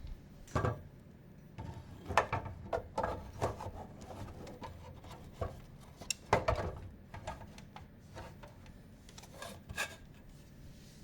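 Hands handling computer parts during assembly: irregular clicks, light knocks and rubbing, with a few louder knocks.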